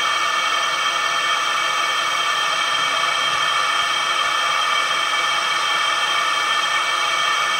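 Laser marking machine running while it engraves a steel hex nut on a rotary chuck: a steady, even hiss with several faint steady whines in it, unchanging throughout.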